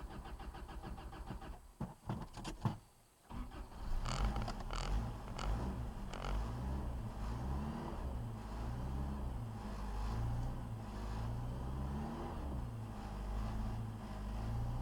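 Toyota 22R four-cylinder engine, carbureted, on a cold start. It runs roughly, falters and briefly cuts out about three seconds in, then fires again and keeps running with an uneven idle whose speed wanders up and down, the sign of a cold engine not yet able to hold its idle.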